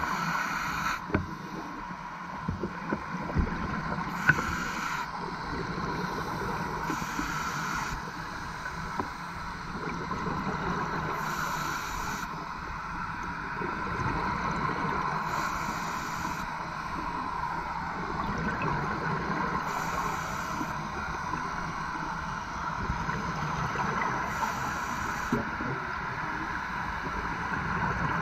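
Scuba diver's regulator breathing heard underwater: a steady muffled rumble of bubbles, with a short hiss roughly every four seconds in the rhythm of slow breaths.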